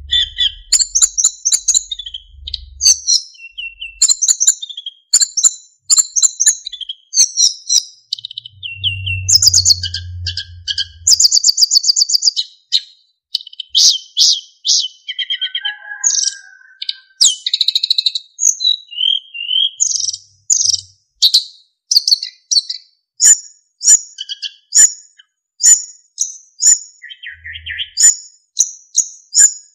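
Sikatan emas (yellow-rumped flycatcher) singing a long, varied song of quick high chirps and rapid trills mixed with clear whistled notes, with hardly a pause.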